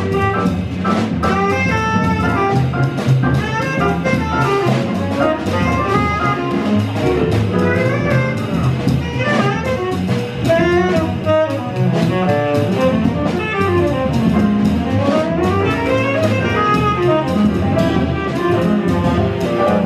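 Live small-group jazz: a tenor saxophone plays a flowing line that keeps rising and falling, over upright bass and a drum kit with cymbals.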